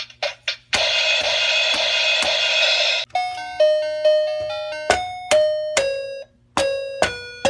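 Electronic toddler's toy drum kit playing its built-in sounds: a few quick drum taps, then a long electronic cymbal crash, then from about three seconds in a chiming accompaniment tune, one bell-like note after another over a beat.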